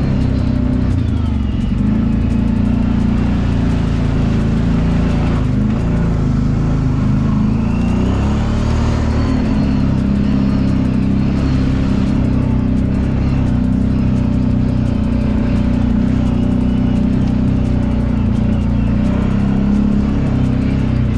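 Kawasaki Brute Force 750 ATV's V-twin engine running steadily at an even pitch while the quad is ridden along a trail.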